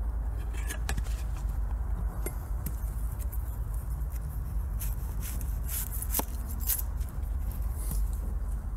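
Wood fire crackling with scattered sharp pops and snaps, over a steady low rumble.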